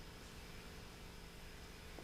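Faint room tone with a steady low hum.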